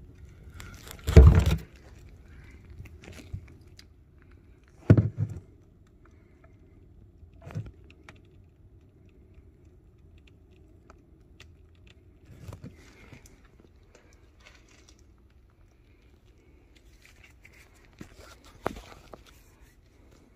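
Sporadic cracks and pops with faint crackling between them, the loudest about a second in and a few softer ones spread out after, from a garage wall cavity filling with expanding two-part post foam. The cracking is typical of the wall working as the curing foam heats up and expands, though the owner wonders whether it is rain outside.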